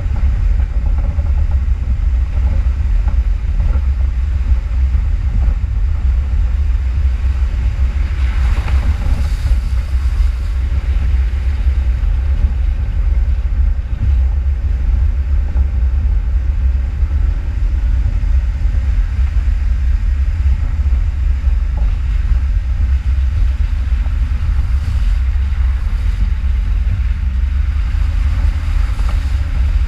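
Off-road vehicle driving: a steady low rumble with noise that doesn't let up, with a brief higher-pitched rise about eight seconds in.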